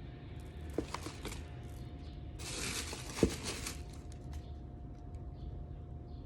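Crinkling and rustling of a bag of dried herbs being handled, with a few light clicks, a louder crinkle lasting about a second starting a couple of seconds in, and one sharp click in the middle of it.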